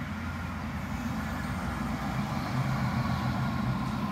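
Articulated tram running past on grass-covered track: a steady low rumble of motors and wheels on the rails with a faint whine above it, growing a little louder about halfway through as it draws level.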